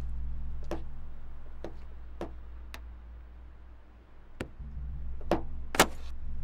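A series of about seven sharp, irregularly spaced clicks, the loudest near the end, over a steady low hum.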